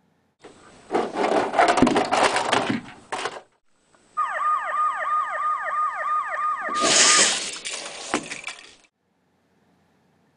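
Disaster sound effects: a loud crashing rumble with clattering for about three seconds. A siren follows, sounding rapid falling sweeps about four times a second. A second crash comes in over the siren, and everything cuts off abruptly.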